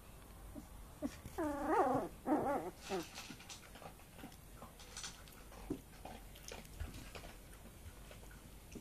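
Swedish lapphund puppies, about three weeks old, vocalizing in play: two short, wavering high-pitched calls about a second and a half in. Faint scratching and rustling of bedding follows.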